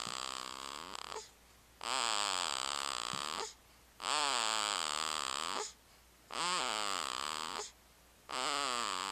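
Snoring in a steady rhythm, one long snore about every two seconds. Each snore lasts well over a second, has a wavering pitch, and is followed by a short quiet gap.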